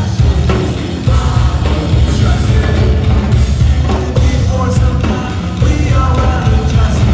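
Rock band playing live, electric guitar and drum kit together, recorded loud from the crowd.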